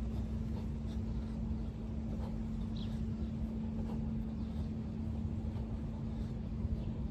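A steady low hum over constant low noise, with a short faint high chirp now and then.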